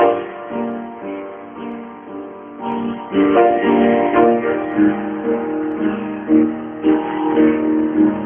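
Upright piano played solo, notes and chords ringing on; the playing is softer for a couple of seconds, then fuller and louder from about three seconds in.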